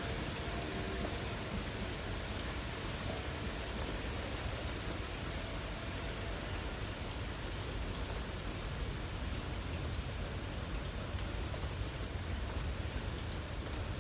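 Light rain hissing steadily over a low rumble, with an insect trilling at a high pitch; the trill breaks into short repeated pulses in the second half.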